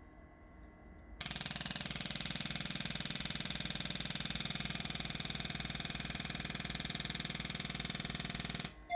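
Pulstar chiropractic adjusting instrument firing a rapid, even train of light impulses that starts abruptly about a second in, runs steadily for about seven and a half seconds and stops abruptly. A short beep sounds right at the end.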